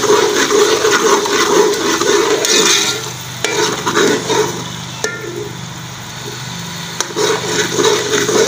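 Eggs sizzling in hot oil in an aluminium pot while a metal slotted spoon stirs and scrapes them, breaking them up. The stirring eases off for a few seconds in the middle, with two sharp clicks of the spoon against the pot.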